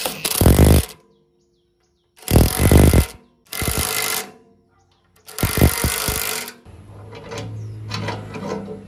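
Four short, loud bursts of rough, rapidly pulsing power-tool noise, each cut off abruptly into silence. After them comes a quieter low hum with light clicks and knocks.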